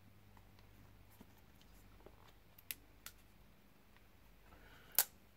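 Quiet room tone with a faint steady low hum, broken by a few light clicks and one sharper click about five seconds in.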